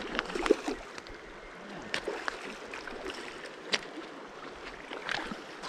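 Shallow river running steadily over gravel, with scattered irregular clicks and rustles close to the microphone from the rain jacket and fly reel being handled while playing a trout.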